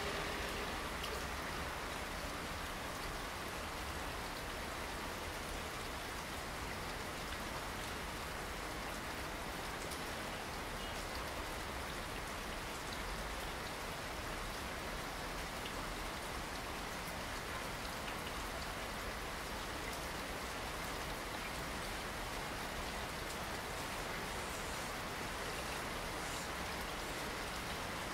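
Steady rain falling, an even hiss of drops that holds unchanged throughout.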